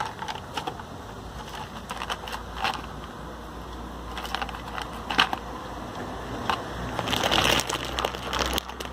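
A puppy eating from small plastic tubs, with scattered crunches and clicks as it chews and noses the containers, over a steady low rumble.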